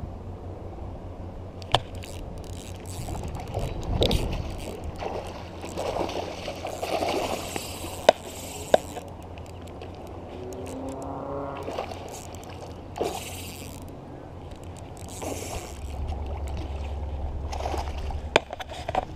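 Wind rumbling on the microphone, with scattered sharp clicks and scrapes from a spinning rod and reel being handled and short bursts of rustling noise, as a hooked peacock bass is fought from the bank.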